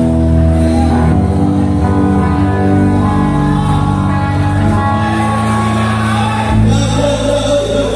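Live rock band playing loud through an amplified PA, electric guitars and bass holding sustained chords over drums, with singing.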